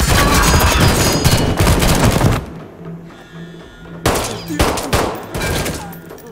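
Rapid gunfire from several handguns, dense and continuous, cutting off abruptly about two and a half seconds in. A few scattered single shots follow over a low pulsing tone.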